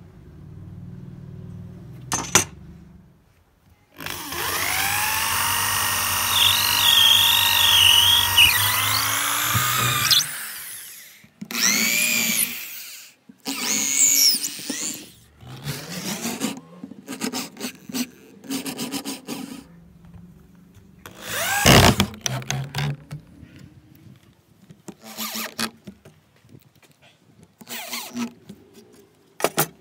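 Electric drill boring holes into a hardwood brace. One long run of about six seconds comes first, then a series of shorter trigger pulls, each a whine that rises and falls.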